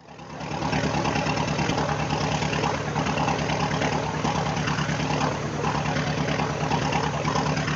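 Motorcycle engine idling steadily, fading in over the first second.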